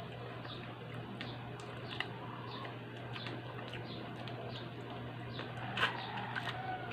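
Eating sounds of a person chewing chicken close to the microphone: wet mouth clicks and smacks, a sharp click every half second or so, over a steady low hum.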